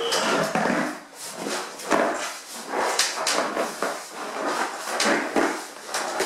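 Camp cot's canvas and metal frame rustling and clicking in irregular bursts as a man shifts his weight on it, trying to stretch the canvas tight onto the frame.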